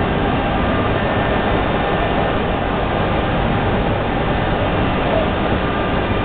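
3.2 m wide-format solvent printer running as it prints: a steady mechanical noise with a few faint steady tones in it.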